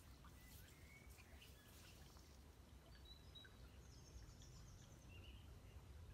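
Near silence: faint, scattered bird chirps and a short trill over a low, steady rumble.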